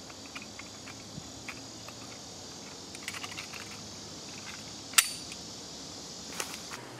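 Insects droning steadily in summer woodland, with small clicks and rattles of a handheld object being handled and one sharp, loud click about five seconds in.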